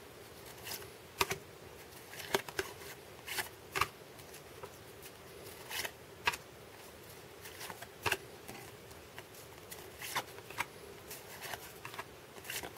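Cardboard baseball trading cards being flipped through by hand, one at a time: a dozen or so light flicks and snaps at uneven intervals as each card slides off the stack.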